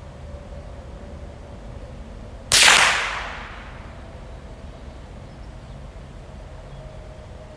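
A single shot from a Marlin Model 60 .22 semi-automatic rifle: one sharp crack about two and a half seconds in, dying away over about a second.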